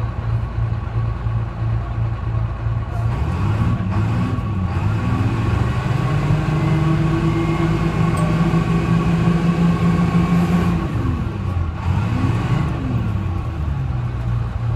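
Detroit Diesel 6V71 two-stroke diesel of a GMC "New Look" bus idling, then revving up with a brief dip in pitch, holding a higher steady speed for several seconds, and winding back down to idle near the end.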